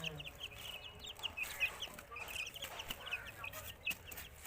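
A group of baby chicks peeping: many short, high chirps overlapping rapidly without a break.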